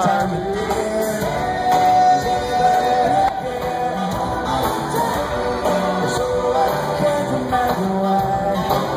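Live rock band playing with a singer over a PA, heard from within an outdoor crowd through a phone's microphone.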